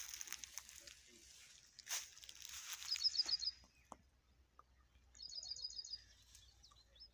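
A small bird giving two short runs of rapid repeated chirps, one about three seconds in and another about five seconds in, over a faint hiss.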